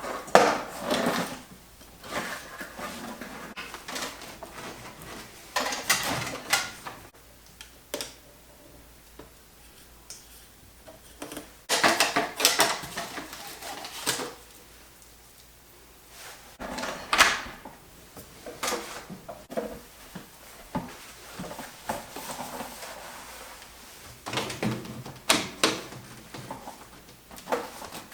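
Intermittent handling noise: bursts of knocks, scrapes and rattles, several seconds apart, with quiet stretches between them.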